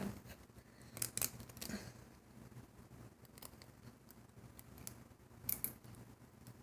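Faint, scattered clicks and snaps of rubber loom bands being lifted over the pegs of a plastic Alpha Loom with a hook, the strongest about a second in and again near the end.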